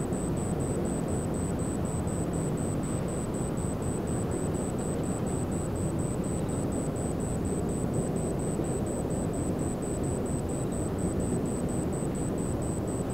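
Steady low rumble of a large car ferry leaving port, with a faint high-pitched tone pulsing evenly about three times a second.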